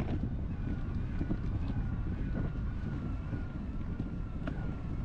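Wind buffeting the microphone with a steady low rumble, with a faint, slightly wavering high whine over it from about a second in and a few sharp ticks.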